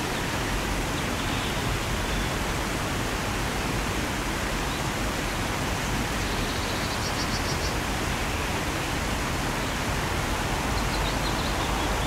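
Steady rush of falling water from a waterfall, with a few faint high chirps.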